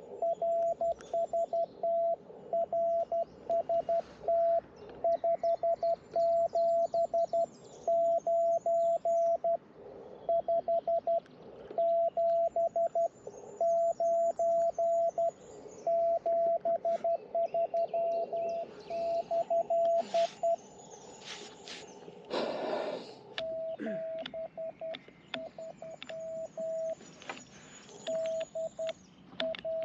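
Morse code (CW) on an amateur radio transceiver: a steady single-pitched tone keyed on and off in dots and dashes, with faint clicks. The keying stops for a few seconds about twenty seconds in, with a brief whoosh of noise, then resumes.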